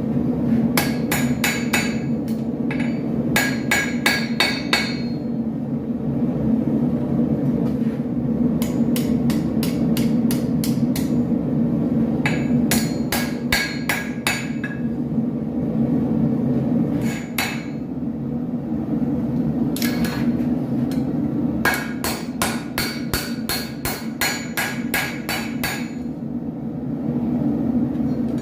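Blacksmith's hand hammer striking steel on an anvil while forging a drawknife: about six bursts of quick ringing blows, four or five a second, with pauses between them, over a steady low drone.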